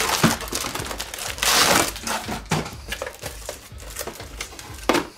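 Inflatable air-column plastic packaging crinkling and rustling as it is handled and pulled off a boxed recorder, with a louder burst of crinkling about one and a half seconds in and a sharp knock near the end.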